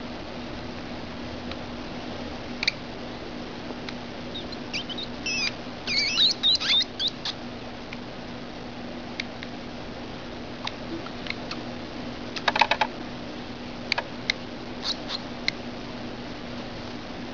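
Newborn hedgehogs squeaking: a run of high, wavering squeaks about five seconds in, then scattered short chirps and a quick cluster of clicks about twelve seconds in, over a steady low hum.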